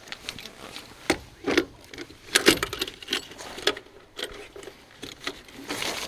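Irregular metallic clinks, clicks and knocks, a quick run of separate strikes with no steady running sound.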